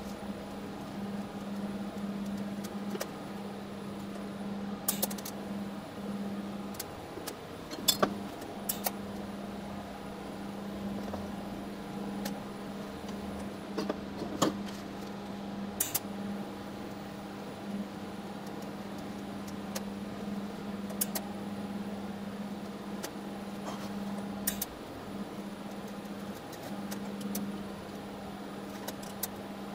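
TIG welding arc running: a steady low hum with a few short gaps, and scattered sharp clicks and crackles.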